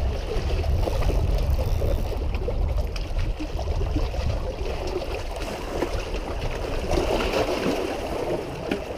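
Small waves lapping and gurgling against lakeshore rocks, a steady wash of water, with a low rumble of wind on the microphone.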